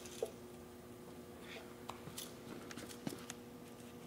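Faint scattered clicks and taps of a long metal straightedge and measuring tape being handled on a concrete floor, over a steady hum.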